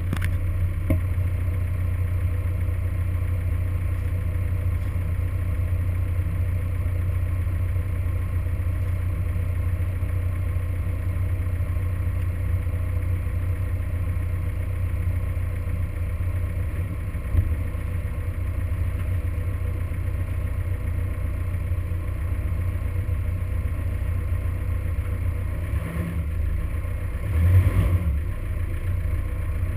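Toyota Hilux engine idling with a steady low hum, the truck standing still. There is a brief louder swell near the end.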